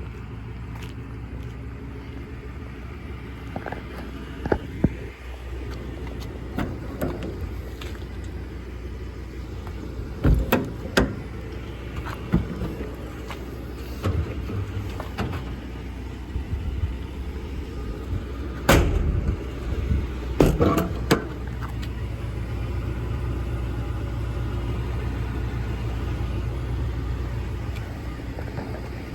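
Truck engine idling steadily, with several sharp metal clanks and knocks of service-body compartment doors and latches.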